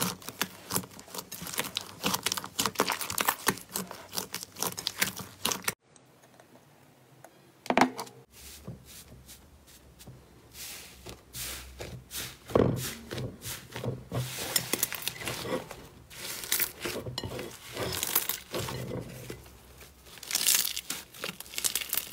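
Hands pressing, poking and squeezing slime, with dense crackling and popping. A short quieter break comes about six seconds in, with one sharp pop near eight seconds, then more crackling and squishing.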